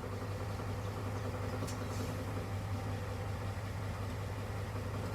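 Diesel engine idling steadily with a low, even hum.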